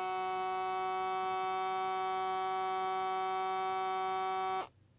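Miniature air pump motor of a wrist blood pressure monitor running to inflate the cuff: a steady, constant-pitch electric whine that cuts off suddenly after about four and a half seconds. The monitor is a broken, non-working unit.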